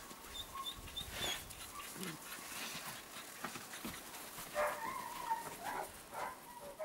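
Young puppies whimpering and whining in short high calls, one after another, with a longer wavering whine about two-thirds of the way through.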